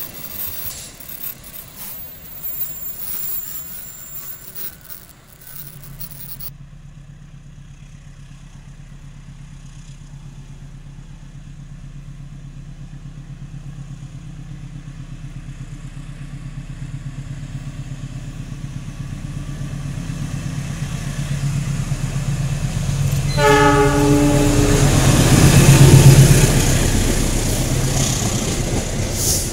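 The tail of a passing train rumbles along the rails and cuts off abruptly about six seconds in. A CC206 diesel-electric locomotive then approaches, its engine drone growing steadily louder. About three quarters of the way through it sounds its horn once for about a second and a half, then passes at its loudest, with the coaches rolling by close to the track.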